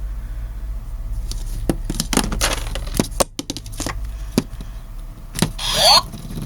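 Plastic light-up toy spinning top clicking and scraping as it is handled and spun, over a low steady hum. Near the end comes a short, loud rising electronic sweep, the loudest sound here.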